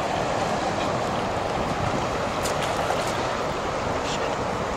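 River water flowing with a steady rushing noise, with a few faint clicks near the middle.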